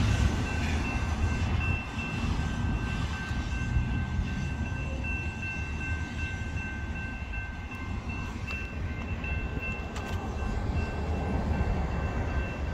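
Cars of a double-stack intermodal freight train rolling away on the rails: a steady rumble of wheels on track, with a steady high-pitched ringing over it.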